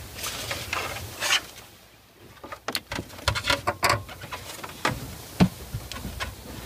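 Hands working wiring connectors and plastic dash parts behind a truck's dash: rustling at first, then a run of small clicks and knocks, one sharper click about five and a half seconds in.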